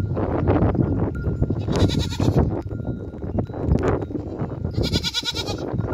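Goats bleating: two loud bleats, one about two seconds in and a longer one about five seconds in.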